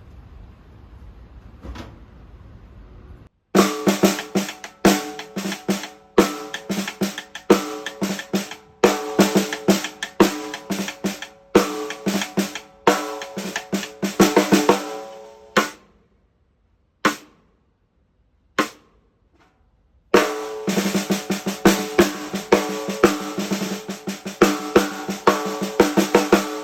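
TAMA Star Reserve Vol.3 bubinga/walnut snare drum played with sticks in quick patterns and fills, each stroke ringing with clear pitched overtones. The playing starts a few seconds in after faint room noise, breaks off around the middle for two single hits, then resumes.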